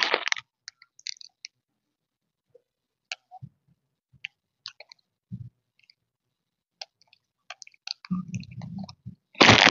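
A person's sparse, soft mouth clicks and smacks. A low hum comes in about eight seconds in, with a loud noisy burst near the end.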